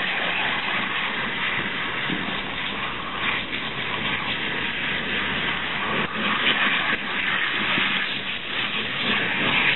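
Water spraying steadily from a salon basin's hand-held shower head onto hair and into the basin.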